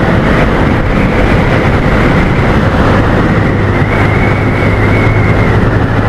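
Benelli motorcycle engine running steadily at road speed, mixed with wind rushing past the microphone; the engine hum grows stronger about halfway through.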